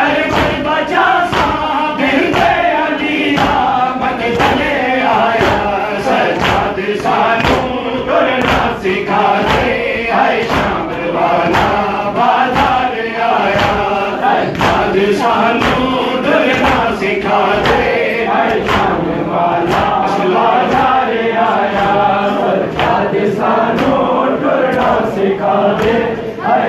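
Crowd of men chanting a Punjabi-Urdu noha (Muharram lament) in unison behind a lead reciter, kept in time by steady rhythmic chest-beating (matam): hand slaps at about one and a half a second.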